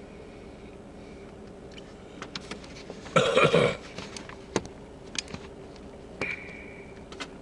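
Handling noise from a hand-held camcorder being moved: a loud rustling knock a little over three seconds in, with scattered sharp clicks before and after, over a steady low hum.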